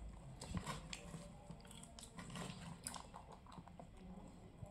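Quiet, scattered small clicks and soft crunches of food at a table: a knife slicing through seaweed-wrapped kimbap and a young macaque biting and chewing a cucumber stick.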